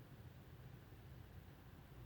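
Near silence: a faint, steady low hum under background hiss.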